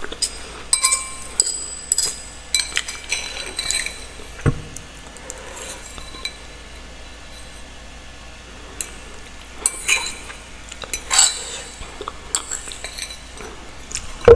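An eating utensil clinking and scraping against a dish: clusters of short clinks with a brief ring in the first few seconds and again near the end, quieter in between.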